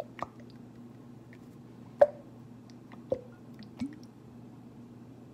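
Plastic squeeze bottle of chili sauce being squeezed out into a pot: a few short wet squelches and splats as the thick sauce sputters from the bottle, the loudest about two seconds in, over a low steady hum.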